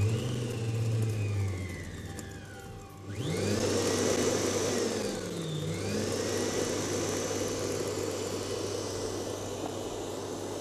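Electric stand mixer whisking a liquid cake batter of eggs, oil and milk. Its motor whines up and winds down over the first couple of seconds. It comes back up a little after three seconds in, dips briefly, then runs steadily.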